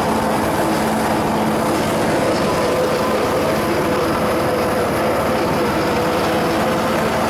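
Ride-on miniature park railway train running steadily, its engine giving a fast, even pulse with a steady hum.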